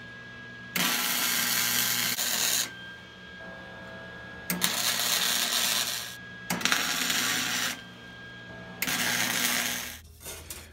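Lincoln Electric 140 wire-feed welder running three beads, each about two seconds of crackling, sizzling arc, welding steel burner-port tubes onto a steel propane-tank body. A low steady hum continues between the beads.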